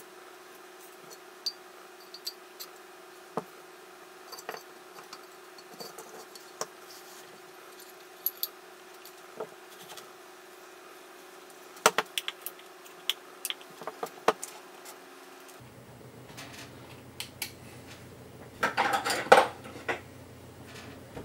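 Small clicks and clinks of hard plastic and metal parts being handled as a radio receiver's circuit board is fitted into its case and the back cover put on. A short burst of rapid clattering near the end is the loudest.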